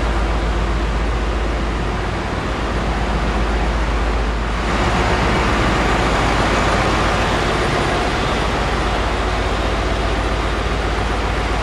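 Loud, steady machinery din of a cargo ship's engine room, with a heavy low rumble under a dense hiss, from the running generators and other engine-room machinery. About four and a half seconds in it grows brighter and a little louder.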